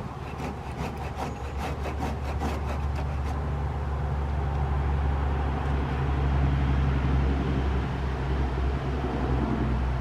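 Low engine rumble of a passing vehicle that swells and then eases off. Over the first three seconds it is joined by a quick run of short clattering strokes, several a second.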